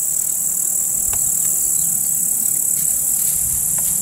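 Crickets chirring steadily in one continuous high-pitched drone, with a couple of faint clicks.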